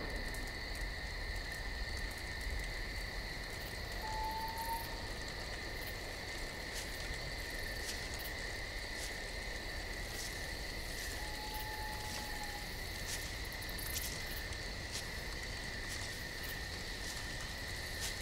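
Steady evening chorus of crickets and frogs, a continuous high trill, with two short faint tones about 4 and 11 seconds in.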